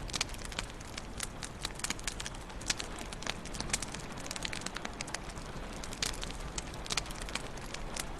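Wood fire crackling in a fireplace: a steady low hiss of burning with irregular sharp pops and snaps, several a second.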